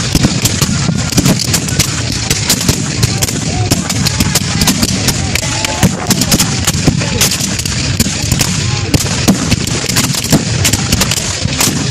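Ongoing black-powder musket fire from many reenactors shooting blanks: a dense, irregular crackle of shots, several a second, with men's voices shouting between them.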